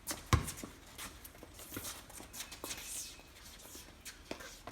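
A basketball bounces once hard on a wet court about a third of a second in, followed by fainter scattered taps and knocks.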